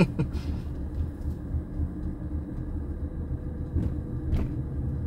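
A car driving slowly, heard from inside the cabin: a steady low rumble of engine and road.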